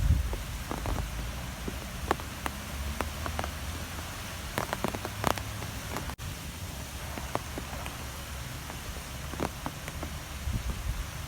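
Strong wind blowing with a low rumble, with scattered sharp ticks and taps throughout. The sound drops out for an instant about six seconds in.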